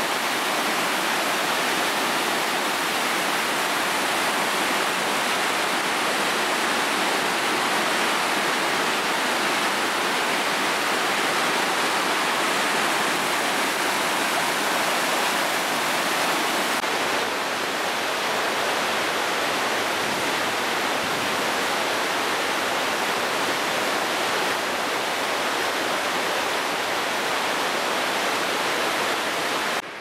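Stream rushing through white-water rapids: a loud, steady rush of water, dipping slightly in level a little past the middle.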